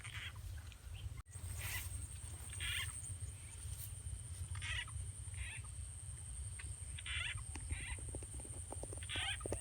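Frogs croaking in short, pulsed calls, about eight of them spaced a second or so apart, over a steady high insect trill and a low rumble.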